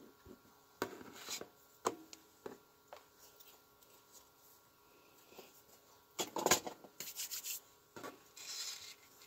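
Hands rubbing and pressing over a fabric placemat on a tabletop, pressing glued-on metal letters down. Short scrapes and light taps come at intervals, with the loudest rubbing just after six seconds in and more near the end.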